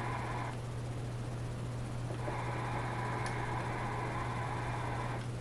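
Static hiss from a Cobra CB radio's speaker, cutting out about half a second in and coming back about two seconds in, over a steady low electrical hum.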